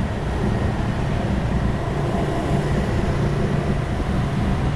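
Motor scooter riding along a city street at night: a steady wind-and-road noise on the handlebar microphone, with the scooter's engine humming underneath and other motorbikes around it.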